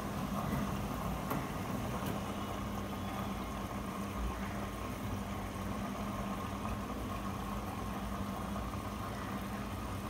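IFB Diva Aqua 6 kg front-load washing machine running its wash cycle: a steady motor hum as the drum turns the wet clothes.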